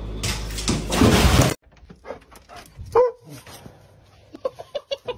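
A loud rushing noise for about the first second and a half, cut off suddenly. Then a dog gives short yelps and whimpers, with a quick run of short yips near the end.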